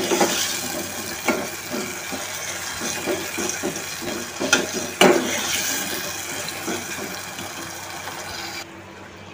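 Chopped tomatoes and onions sizzling in an aluminium pot on a gas stove, a steady hiss, with a ladle knocking and scraping against the pot a few times as it stirs. The high hiss drops away suddenly near the end.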